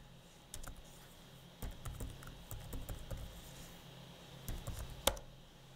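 Computer keyboard typing: scattered faint key clicks, with one sharper, louder click about five seconds in.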